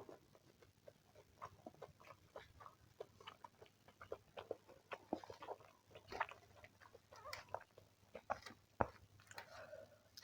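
Close-miked eating sounds: soft, irregular wet mouth clicks and smacks of food being chewed.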